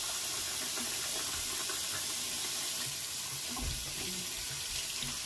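Bathroom sink tap running steadily while hands are washed and rinsed under the stream.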